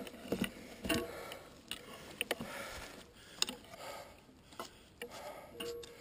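Mountain bike clattering down a dry dirt trail: irregular sharp clicks and knocks as it rattles over bumps, with short patches of rolling noise between them.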